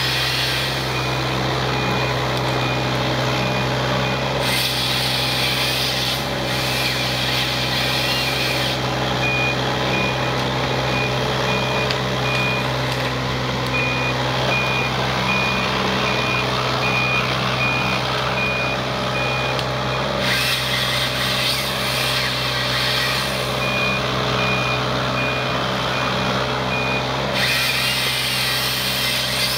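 Mini hydraulic excavator's diesel engine running steadily as the machine tracks along a row, its travel alarm beeping over and over. Twice, for several seconds each, a louder high-pitched rushing noise joins in.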